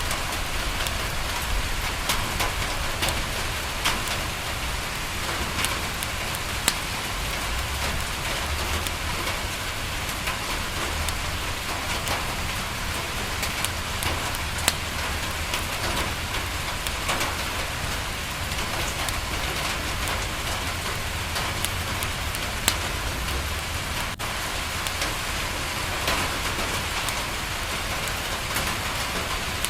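Steady rain pattering on a window, mixed with a fireplace crackling, with a sharp pop now and then and a low rumble underneath.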